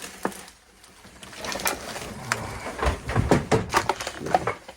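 Irregular knocks, clicks and rustling of objects being handled and set down, starting about a second in and busiest toward the end.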